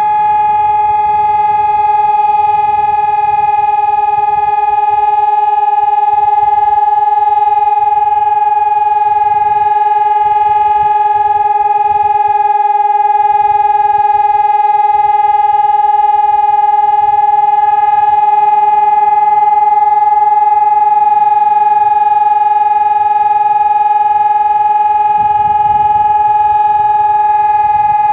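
Civil-defence siren sounding one long, steady, unbroken tone: the continuous 'Entwarnung' (all-clear) signal of a German siren test.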